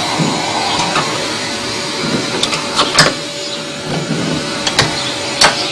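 Metal tool work on a washing machine's drive mechanism: a nut being run down with a nut driver, with soft knocks and a few sharp metallic clicks over a steady hiss.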